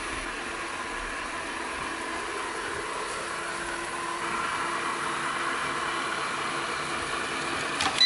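Eufy robot vacuum running steadily as it drives across a wooden floor back to its charging dock, its motor and brushes making a constant whirr that grows a little louder about halfway through. A sharp click near the end as it meets the dock.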